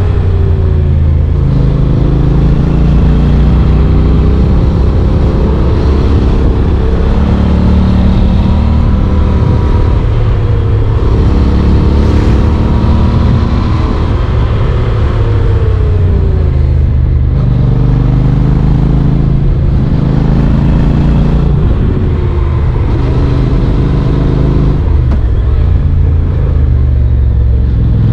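Honda NC750X's parallel-twin engine running under way, its pitch repeatedly rising and dropping with throttle and gear changes, over a steady rush of wind noise.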